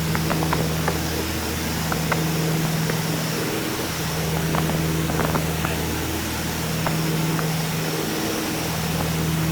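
Piper PA-30 Twin Comanche's two piston engines and propellers droning steadily, heard from inside the cabin in flight. The main tone swells and fades every two to three seconds, a pulsing typical of two propellers turning slightly out of sync.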